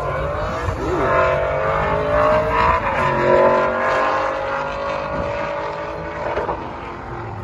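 Two drag-racing cars' engines at full throttle, accelerating down the strip with pitch climbing and dropping back at gear changes. The sound is loudest a few seconds in and fades as the cars pull away.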